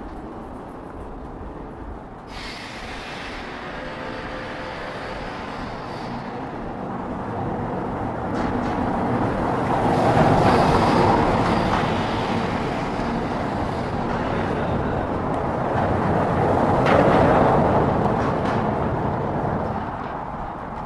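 City street traffic with vehicles passing close by. The sound swells to its loudest about ten seconds in and again about seventeen seconds in, then fades.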